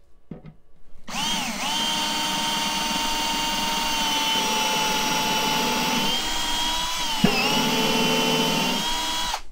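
Cordless drill with a countersink bit boring a countersunk screw hole through a cabinet's top panel, running steadily as a continuous motor whine. It starts about a second in after a short spin-up, dips briefly with a click about seven seconds in, and cuts off just before the end.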